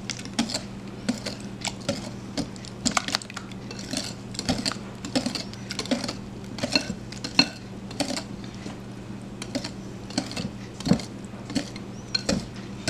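A whisk clinking and scraping against a mixing bowl in quick, irregular taps, several a second, as milk is stirred into a thick pudding batter of eggs, sugar and cornstarch. A steady low hum runs underneath.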